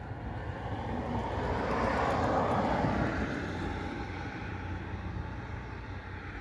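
A vehicle passing, its noise swelling to a peak about two to three seconds in and then fading, over a steady low hum.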